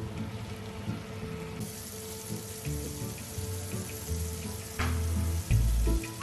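Soft background music with held tones and changing bass notes, over a steady rain-like hiss that thickens about a second and a half in.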